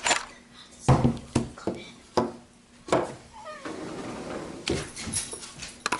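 Sharp clicks and knocks from a cordless power tool being handled, a few in the first three seconds, then a steady rough noise from about four seconds in.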